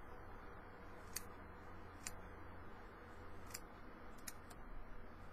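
Scissors snipping moss off a small wreath: about five faint, separate snips, spaced a second or so apart, over a low steady hum.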